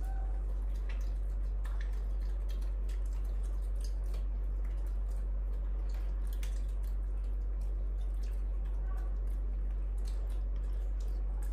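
Small macaques eating noodles from a metal bowl: faint scattered clicks and light wet smacking sounds. A steady low hum runs under them and is the loudest sound.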